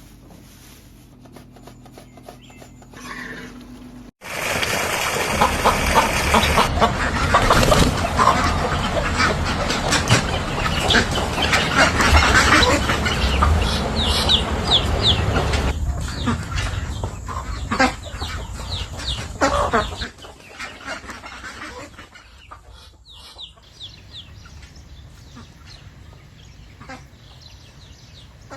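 Chickens clucking. About four seconds in, the sound turns much louder and denser with many short sharp sounds, then drops back to quieter clucking about two-thirds of the way through.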